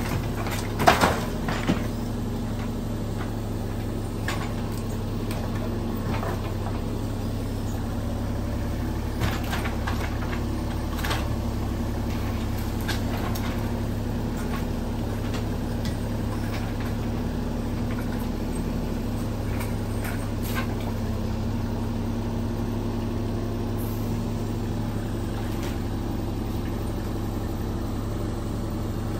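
Mini excavator's diesel engine running steadily at a constant pitch, with a few scattered knocks.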